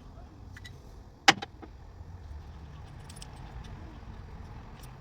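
Metal tools and parts clinking, with one sharp metallic clank a little over a second in, then a few light clicks and ticks.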